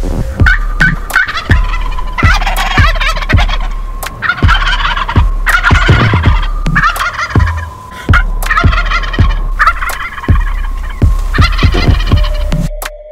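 Wild turkeys gobbling loudly again and again, one rattling gobble after another.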